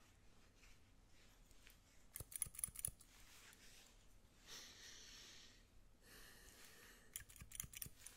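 Barber's scissors snipping close to the microphone in two quick runs of several snips, about two seconds in and again near the end. A soft brushing hiss fills the gap between them.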